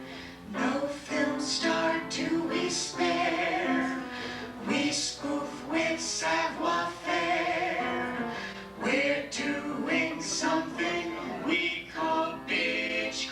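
A singer performing a show tune live, with piano accompaniment.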